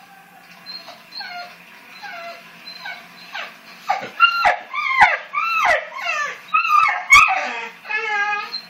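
English bull terrier whining and yelping at dogs on the television: a run of short, high calls, each falling in pitch, that grows much louder about halfway through.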